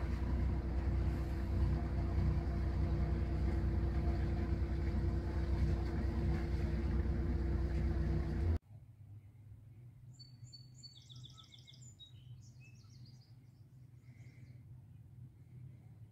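A large motorboat's inboard engines running with a steady low rumble, cut off abruptly about eight and a half seconds in. After the cut it is quiet apart from a faint low hum and a songbird singing a few short high phrases.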